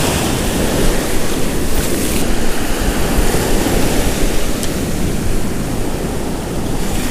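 Ocean waves breaking and washing in, a steady loud rush of surf, with wind buffeting the microphone.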